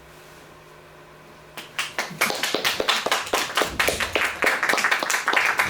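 Hands clapping, starting about a second and a half in and becoming a quick, dense run of claps: applause at the end of a reading.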